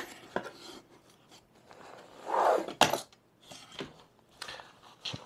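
Cardboard product box being opened and a padded pouch lifted out: scattered light clicks and taps of cardboard flaps and packaging, with a brief scraping rustle and a sharp snap a little over two seconds in.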